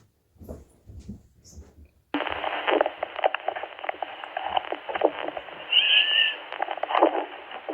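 Radio transmission crackling with tinny static that cuts in about two seconds in, with a brief high whistle near six seconds.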